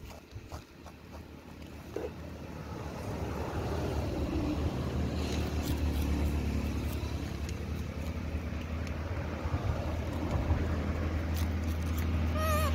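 A motor vehicle's engine running with a low, steady rumble that builds up over the first few seconds and then holds.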